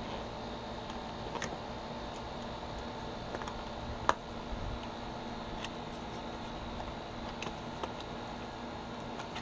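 Scattered light clicks and taps from handling the boxed grill tool set and its packaging, with one sharp click about four seconds in, over a steady background hum.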